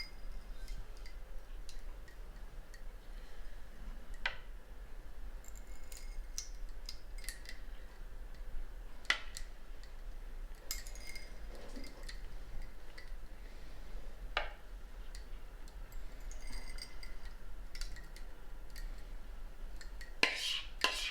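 Light taps and clinks of kitchenware while custard is poured into ramekins: a few sharp taps several seconds apart and some short ringing clinks, then a louder clatter of dishes near the end.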